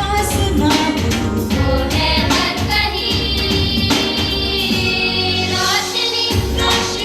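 A song with singing voices over a steady beat.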